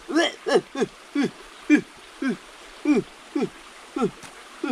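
An animal's repeated short hooting calls, each rising briefly then falling in pitch, about two a second, over the faint steady rush of a stream.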